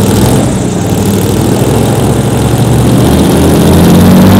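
Airboat's Katech-modified GM LT5 V8 running with the propeller turning: a steady, loud engine drone whose pitch rises a little near the end.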